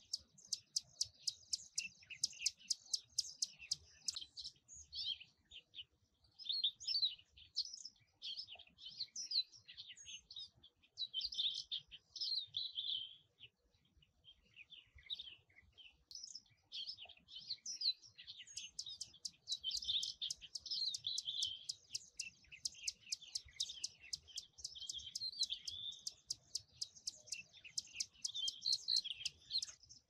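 Plain prinia calling: rapid runs of sharp ticking notes mixed with chattering, warbled notes, with a short pause about halfway through.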